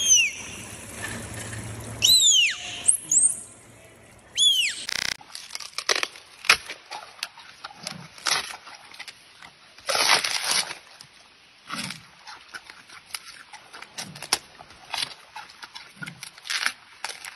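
A dolphin whistling: a few high whistles that rise and fall, in the first five seconds. Then a giant panda chewing a bamboo shoot, with irregular sharp crunches and cracks as the stalk is bitten and torn.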